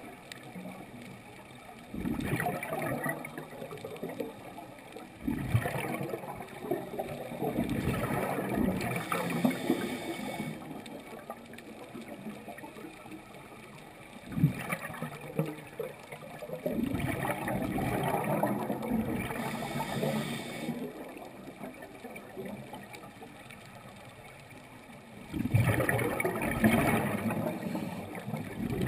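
Water gurgling, swelling in several louder surges a few seconds apart.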